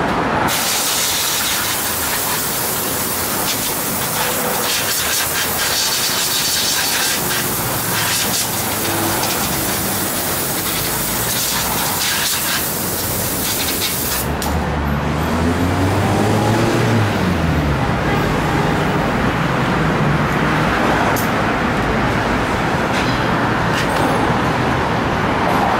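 Compressed air hissing from an air-hose nozzle, blowing dust out of a desktop computer case, loud and uneven, in blasts. The air stops about halfway through. After that there is low traffic noise with an engine rising and falling in pitch as a vehicle passes.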